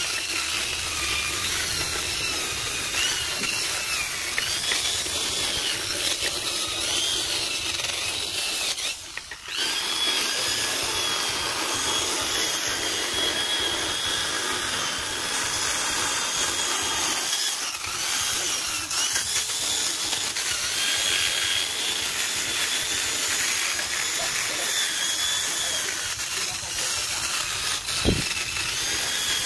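Handheld electric drill fitted with a flap-wheel sander, running at high speed against carved wood as it smooths a relief carving. It makes a steady whine whose pitch wavers with the pressure, and it drops out briefly about a third of the way in.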